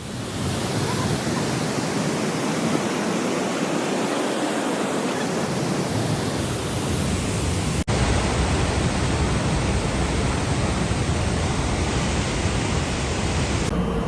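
Floodwater in a swollen river rushing in a steady, loud wash of noise, with an abrupt cut about eight seconds in to another stretch of the same rushing water, heavier in the low end.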